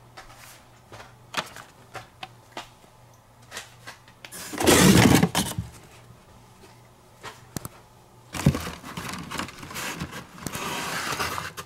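Carded Hot Wheels cars in plastic blister packs and their cardboard case being handled: scattered light clicks and taps, a loud clatter a little before halfway, then a longer stretch of rustling and scraping as cars are pulled from the case's cardboard shelves.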